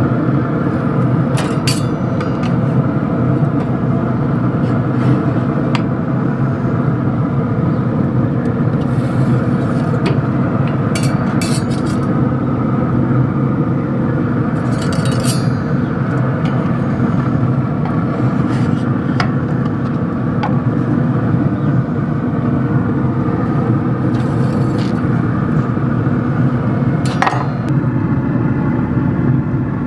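A steady machine hum with a low, even pitch, with a few sharp metal clinks and scrapes as the pizzas are set onto the pellet grill.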